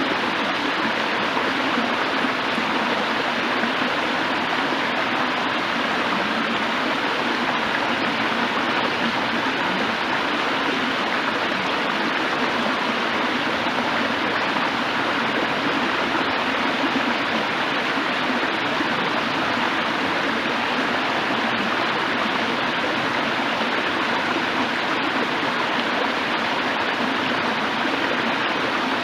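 A stream of running water rushing and splashing over rocks, a steady full rush of water noise.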